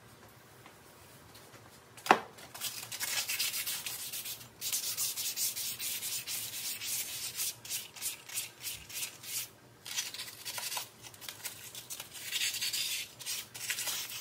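A steel wheel hub being hand-rubbed with abrasive cloth, in rapid back-and-forth scraping strokes with short pauses, to clean scuffs off its surface. A single sharp knock about two seconds in comes before the rubbing starts.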